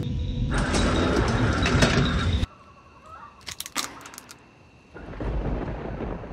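A loud, noisy rumble that cuts off abruptly after about two and a half seconds. Then a handful of sharp clicks of walnut shells being picked through and cracked on a wooden table, followed by a low steady hiss.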